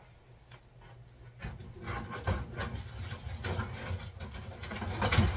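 Rustling and light knocking of household things being handled and moved about, starting about a second and a half in after a quiet moment and growing busier towards the end.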